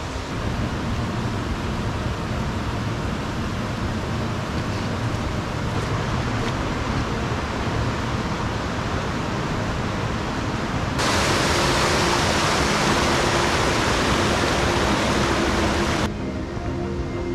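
Steady rushing of a small river. For about five seconds in the second half it grows louder and brighter as the water cascades over rocks close by, then drops off abruptly.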